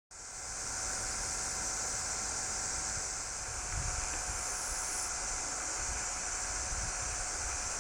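Outdoor riverbank ambience: a steady high hiss with wind buffeting the microphone in low gusts, and no bird call standing out.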